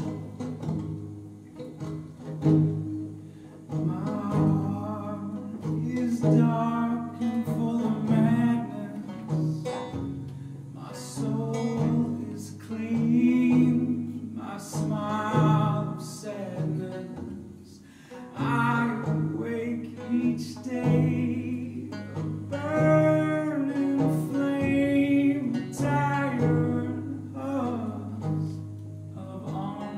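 A man singing a folk song while picking a banjo. The banjo plays alone for the first few seconds before the voice comes in.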